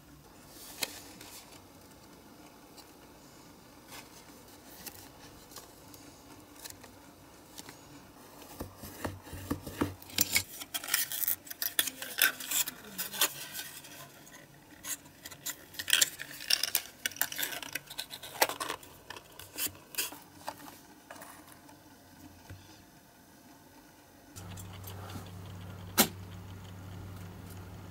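Thin printed cardboard box handled and folded by hand: a run of crisp crinkles, creases and small taps as the end flaps are bent and tucked in. Near the end a steady low hum starts, from a motorised display turntable, with one sharp click.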